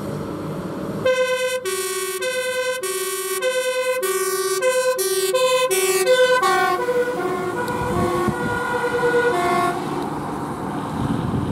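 Fire truck's two-tone siren alternating between a high and a low note, starting about a second in. Its pitch drops as the Volvo truck passes, and the siren stops about ten seconds in, leaving the truck's diesel engine and road noise.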